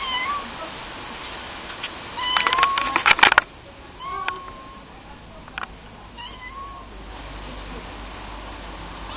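Tortoiseshell cat meowing: four short meows, roughly two seconds apart. Around the second meow comes a burst of loud clicks and rustles.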